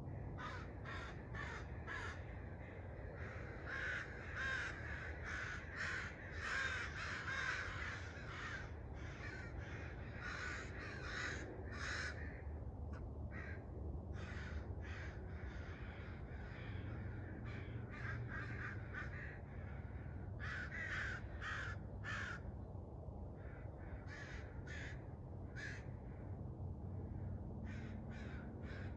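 Birds calling at daybreak in quick runs of short, harsh notes, clustered and repeated throughout, over a steady low rumble.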